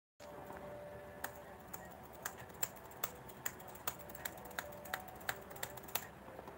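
Typing on a computer keyboard: irregular key clicks, about two a second, starting about a second in and stopping near the end.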